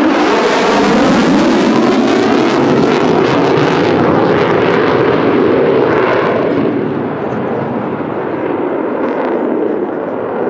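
F-35A fighter jet's single afterburning turbofan on a fast low pass, a loud jet roar with crackle in the first few seconds, easing after about six seconds as the jet pulls away.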